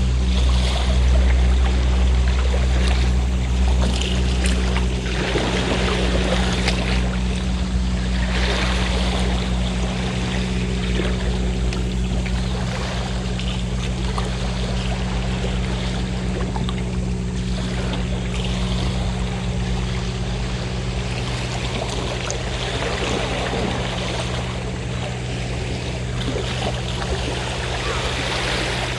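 Fishing boat engine running with a steady low hum, its deep rumble heaviest in the first few seconds, while sea waves wash and ebb every few seconds.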